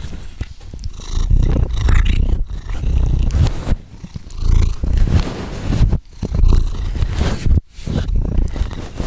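Domestic cat purring right against the microphone: a low pulsing rumble with breathy hiss and a few small wet mouth clicks. It breaks off briefly twice, near six and near seven and a half seconds.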